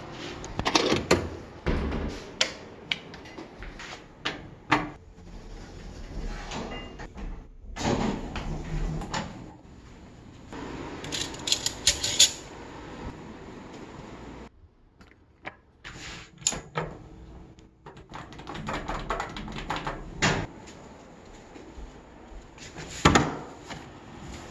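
A string of clicks, knocks and rustles as a hotel room door's lever handle and latch are worked and a person walks and handles things. The sound goes quieter for a few seconds past the middle, and there is a sharp loud knock near the end.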